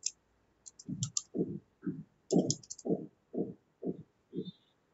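Typing on a computer keyboard: scattered sharp key clicks among a run of about eight dull thumps, roughly two a second.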